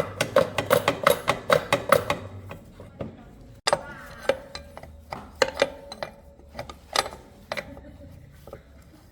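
Metal tools clicking and clinking: a quick run of ratchet-like clicks for about two seconds, then scattered single metal clinks, some ringing briefly.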